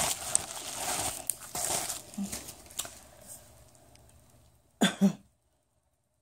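Bubble-wrap packing crinkling and rustling as it is handled, fading away over the first three seconds or so. About five seconds in comes a brief voice sound, then the sound cuts out to dead silence.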